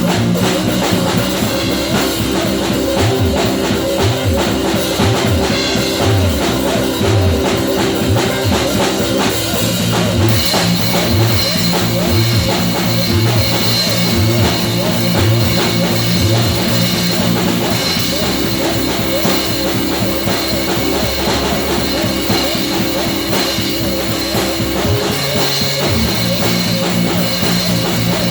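Rock music with drum kit and guitar playing steadily.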